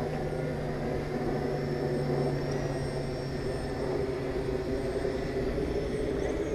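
Aosenma CG035 quadcopter's brushless motors and propellers humming steadily, with a high whine that steps up in pitch about halfway through.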